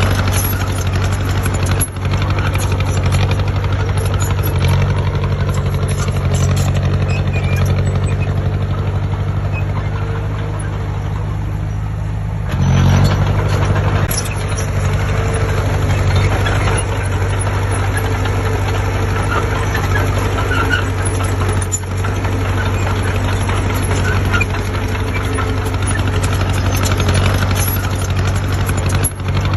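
Heavy diesel engine of earthmoving machinery running steadily, with a louder surge about twelve seconds in.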